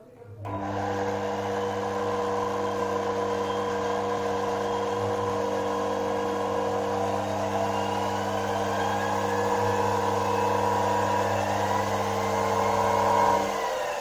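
A belt-driven motor-generator rig running steadily: a DC motor spinning a converted washing-machine universal motor as a generator, giving a steady electric hum and belt whir with faint whines that glide up and down. It starts about half a second in, after a brief quiet moment.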